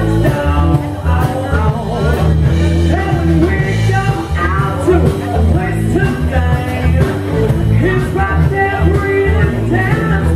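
Live rock band playing: a woman singing over electric bass guitar and a drum kit.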